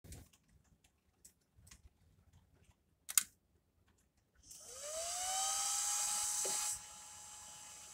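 Servo motor driven by an MTS AC-10-S servo amplifier: a sharp click a few seconds in, then the motor spins up with a whine rising in pitch and runs at a steady whine under a loud hiss. The hiss cuts off sharply, leaving the steady whine.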